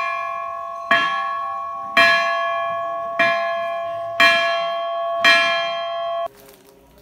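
Hindu temple bell rung over and over, about once a second, each strike ringing on and fading until the next; the ringing cuts off suddenly about six seconds in.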